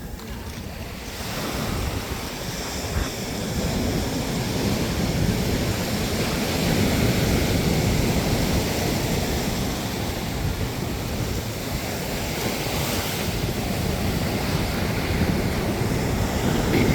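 Ocean surf breaking and washing up the beach, a steady rush that swells about a second or two in, with wind buffeting the microphone.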